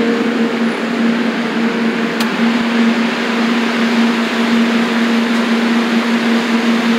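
Steady rushing of a kitchen ventilation fan with a low, steady motor hum under it. One faint click about two seconds in.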